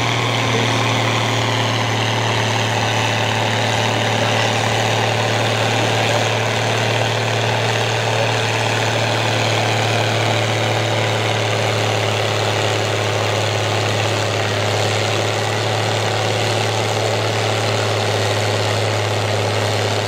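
International Harvester farm tractor's diesel engine idling steadily, a constant low drone that holds the same pitch throughout.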